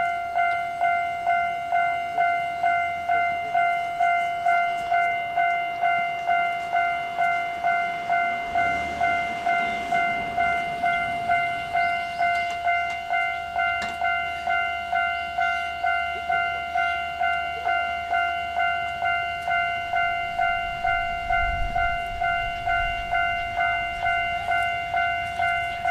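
Japanese railway level-crossing alarm bell ringing steadily, about two strokes a second. Beneath it a diesel railcar rumbles low, swelling partway through and again near the end.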